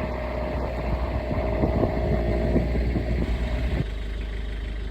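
A vehicle running: a steady low rumble with a thin steady hum and scattered light knocks. The rumble drops off abruptly near the end.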